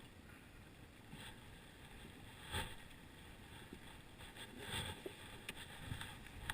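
Faint steady wind and water noise, with a single sharp knock about two and a half seconds in and a few softer knocks near five seconds.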